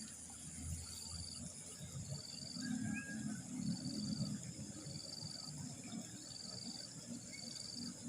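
Insects calling: a short trilling chirp repeats about once a second over a steady, high-pitched insect drone, with a low rustling underneath.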